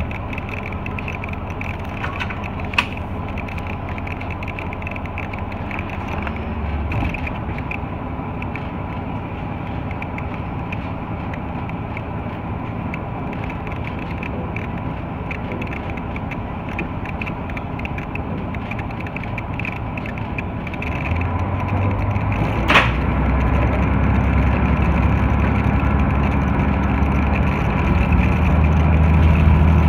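KiHa 32 diesel railcar's engine idling, heard inside the driver's cab. About two-thirds of the way through it throttles up and runs louder as the railcar pulls away. There is a sharp click early on and a louder sharp knock as the engine comes up.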